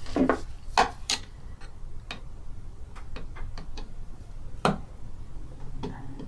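Screwdriver working a small set screw on a White 173 sewing machine's motor assembly: a fast run of light clicks in the middle, with a few louder knocks around it.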